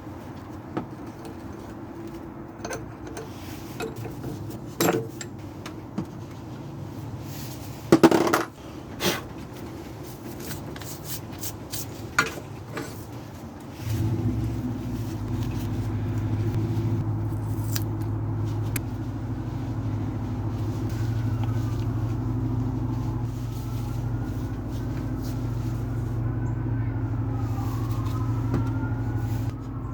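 Scattered metal clinks and knocks as the struts and tools are handled, with one loud clank about eight seconds in. About halfway through, a drill motor starts and runs steadily.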